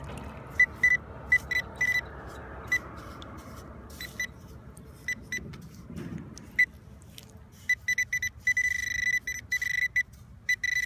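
Metal detector beeping on a buried metal target: short beeps of one fixed pitch, spaced out at first, then coming faster and running almost together near the end as it closes on the target.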